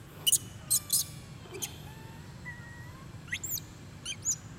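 Short, sharp high-pitched animal chirps and squeaks: a few quick ones in the first second and a half, then two calls that sweep sharply up in pitch near the end, over a faint steady background hum.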